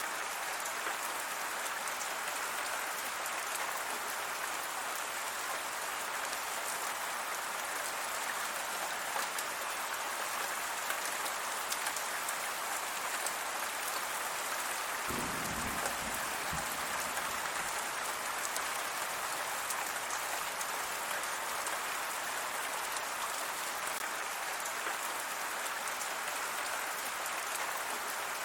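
Steady rain falling and pattering on surfaces, an even hiss. About halfway through there is a brief low rumble lasting about a second and a half.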